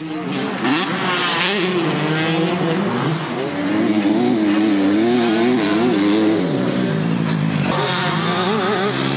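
Motocross bike engine revving hard on the track, its pitch rising and falling as the throttle is worked and gears change. It eases briefly about six seconds in, then picks up again.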